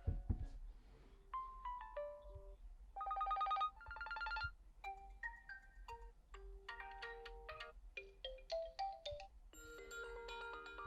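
OPPO Reno8 T default ringtones played one after another through the phone's speaker: short electronic melodies of bright chime-like notes, each snippet giving way to a different one after a second or two.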